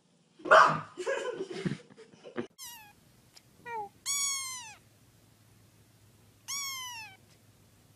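A kitten meowing: several high meows that fall in pitch, the longest and loudest about four seconds in and another near seven seconds. Before them, from about half a second in, a loud noisy clatter lasts about two seconds.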